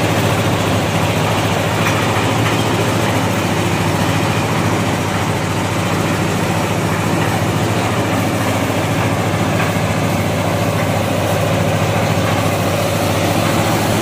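A concrete mixer's 12–15 hp diesel engine running steadily.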